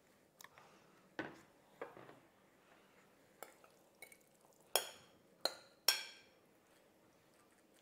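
A metal spoon knocking against dishes while filling is scraped out of a glass bowl: a few soft knocks, then three sharp, ringing clinks in quick succession about five seconds in.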